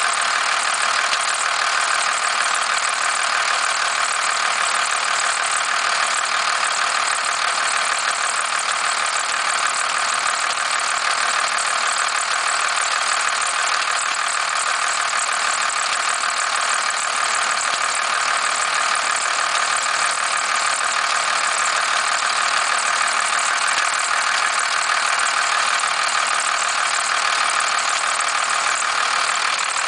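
First-generation Cummins 12-valve 5.9-litre inline-six diesel idling steadily with a knock and rattle whose source the owner cannot pin down.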